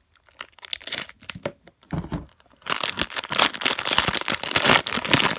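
Plastic wrapper of a trading-card value pack being cut with a serrated pocketknife blade and torn open by hand: scattered small clicks and a low thump about two seconds in, then continuous loud crinkling and tearing of the plastic.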